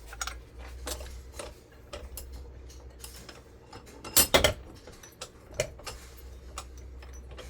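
Metal hand tools clicking and clinking against the parts of a ceiling fan motor being pulled apart for its copper. The clicks are irregular, with a louder cluster of knocks about four seconds in, over a low steady hum.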